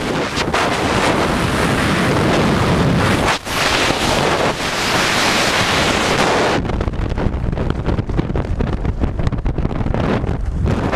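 Freefall wind blasting across the camera's microphone, a loud steady rush. About two-thirds through, the rush loses its hiss and turns choppier and buffeting as the parachute canopy opens and the fall slows.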